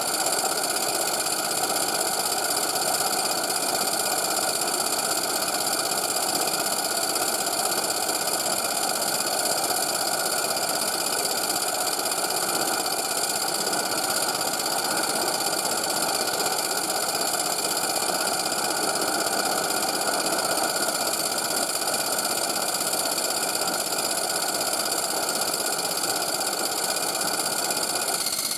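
Maxitrak Allchin 3/4-inch live-steam model traction engine running steadily on a static run-in, its exhaust beats under the steady roar of its gas burner. The sound shifts slightly near the end.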